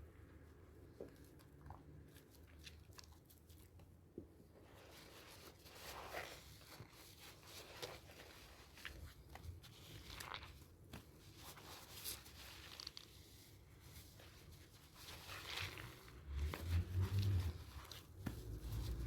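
Thick, wet soap lather from soaked sea salt and charcoal bar soap being worked and squeezed, with irregular crackly, squishy sounds. It is faint at first, picks up about a quarter of the way in, and is louder near the end.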